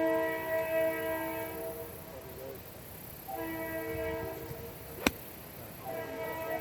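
A steady horn-like chord of several notes sounding in long blasts, with gaps at about two and five seconds in. About five seconds in comes a single sharp crack of a 9 iron striking a golf ball.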